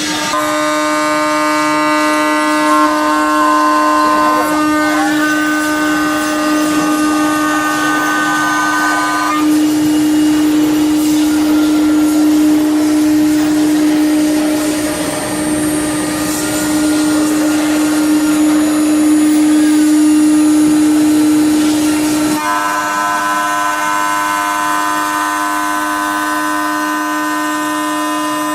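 A 9 kW HQD spindle on a CNC router running at a steady high-speed whine while it mills a fibreglass mould. A set of higher tones from the cut drops out about nine seconds in and comes back about 22 seconds in.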